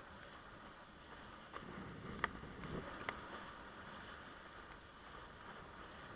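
Faint steady rush of water and wind as a windsurf board moves across the water, with three sharp knocks between about a second and a half and three seconds in.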